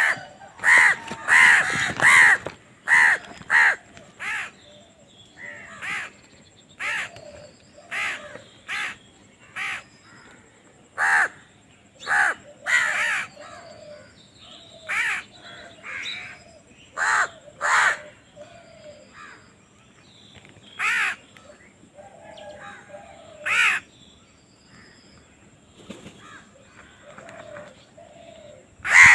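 Crows cawing: a quick run of calls in the first few seconds, then single caws every second or two, and another quick run near the end.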